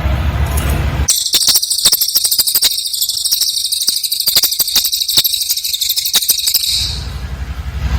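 Cililin bird song: a dense, very high-pitched rapid trill of fast repeated notes. It starts about a second in and runs for nearly six seconds before breaking off, with a low rumble in the background before and after.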